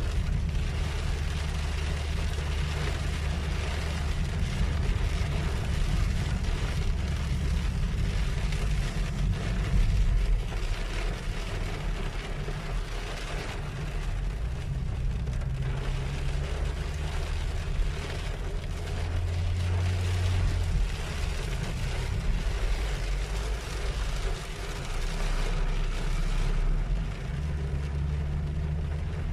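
Heavy rain hissing on a car's windshield, heard from inside the moving car over the low, steady rumble of the car driving on a wet road.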